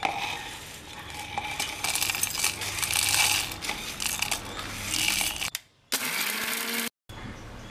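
Dry-roasted red chillies, coriander seeds and whole spices are scraped off a steel plate with a plastic spoon and clatter into a stainless-steel mixer-grinder jar: a dense rattle of many small hard pieces hitting metal, which cuts off about five and a half seconds in.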